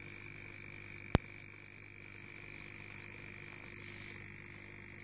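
Aquarium air pump running a sponge filter, humming steadily, with a single sharp click about a second in.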